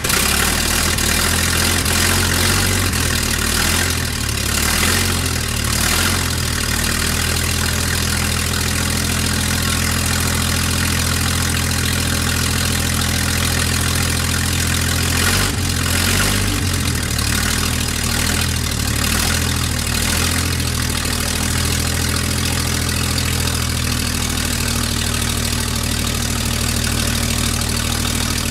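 Hercules HXD six-cylinder engine from a 1943 Brockway C666 idling steadily on its first run after restoration. Its speed wavers briefly about halfway through.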